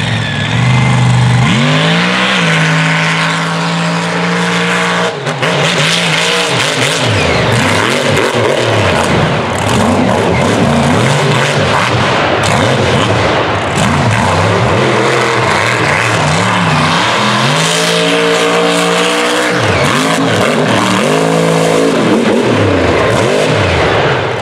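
Mega truck's roughly 1600-horsepower racing engine revving hard as it launches about a second and a half in, then running at high revs around the dirt course, its pitch climbing and dropping again and again with the throttle.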